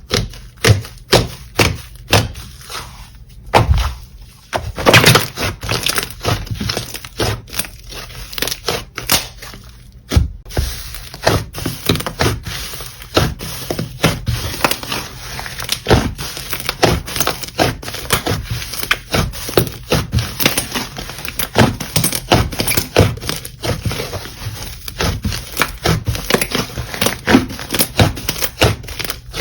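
Slime being squeezed and kneaded by hand, giving rapid, irregular crackling and popping clicks.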